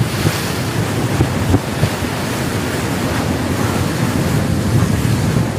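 Wind buffeting the microphone over the steady rush of water past a moving boat's hull.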